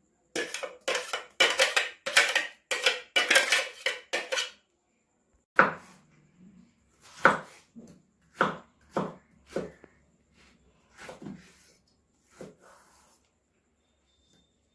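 A spoon scraping and knocking against a stainless-steel blender jar in quick loud strokes, emptying out blended pineapple pulp. After about five seconds this gives way to a knife chopping through pineapple slices onto a wooden cutting board, single strokes about once a second.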